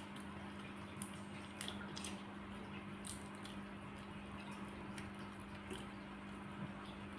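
Quiet wet eating sounds: sucking and chewing on cooked crab, with a few small clicks as crab shell is picked apart by hand, over a steady low hum.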